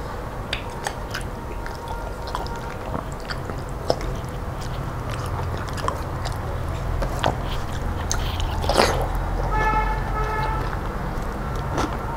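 Close-up chewing and wet mouth sounds of a man eating rice and dal by hand, with scattered small clicks and squelches, over a steady low hum. About ten seconds in, a brief toot of several steady tones, like a vehicle horn outside, sounds for about a second.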